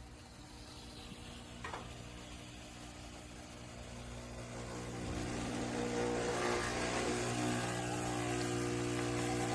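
Breville Bambino espresso machine's vibratory pump humming steadily as it pulls a shot, growing louder about halfway through, after a short click about a second and a half in. This pump vibration shakes the thin drip tray enough to walk the espresso glass out of place.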